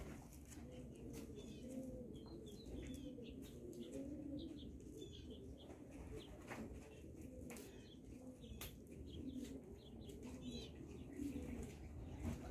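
Racing pigeons cooing over and over in low, warbling coos, with scattered sharp clicks and a few short high chirps.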